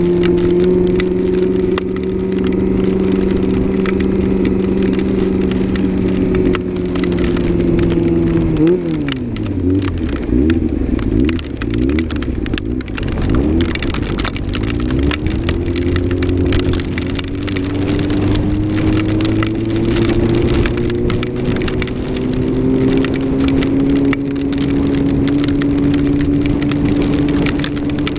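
Yamaha R6 motorcycle engine running at a steady pitch, then dropping sharply in revs about eight seconds in and wavering low for several seconds before climbing back to a steady cruise. Many small ticks and crackles run throughout.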